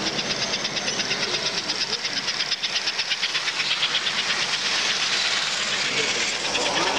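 American Flyer S-gauge model freight train running past on the layout track, with a fast, even hissing pulse many times a second.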